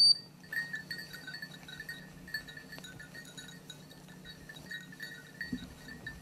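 A small metal bell tinkling irregularly, with a sharper ring at the very start, over a low steady hum.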